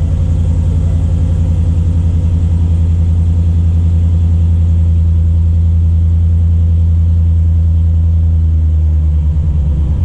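2010 Ford F-150's engine running steadily as a low, even drone, with no rattle in it: the rattle has been fixed.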